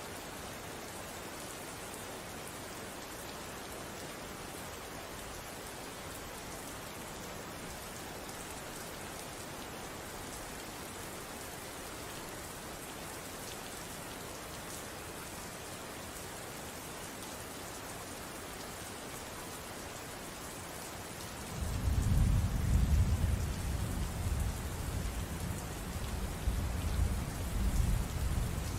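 Steady rain falling. About three-quarters of the way through, a loud, low rumble of thunder starts suddenly and rolls on, wavering, to the end.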